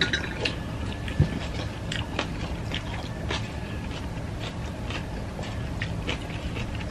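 Close-up eating sounds: chewing and wet mouth smacks, with scattered small clicks of fingers and food against plates and bowls.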